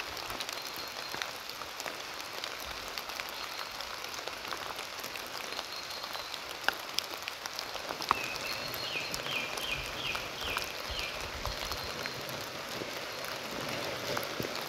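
Steady rain falling on forest leaves, with scattered louder drops hitting close by. About two-thirds through, a bird sings a short run of about six quick notes.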